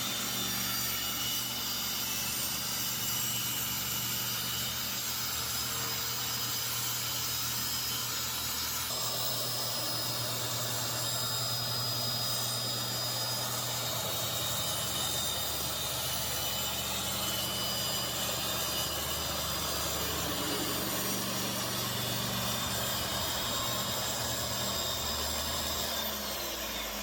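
Electric power tool running steadily while cutting wood, a continuous whine and rasp.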